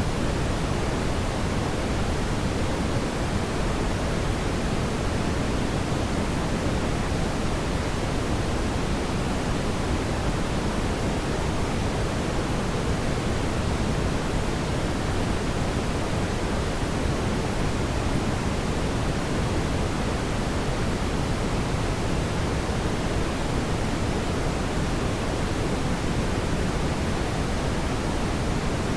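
Fire burning in a fireplace, a steady even rushing noise weighted toward the low end, with no distinct crackles or pops.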